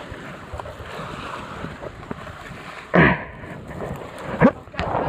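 Wind buffeting the phone's microphone over the wash of waves, with the phone rubbing against a coat as it is carried during a rock scramble; two loud brief scuffs stand out about three seconds in and again near the end.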